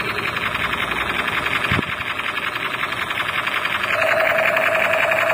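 Battery-operated toy assault rifle's electronic machine-gun sound effect from its built-in speaker: a rapid, even rattle of shots, with a steady electronic tone joining about four seconds in.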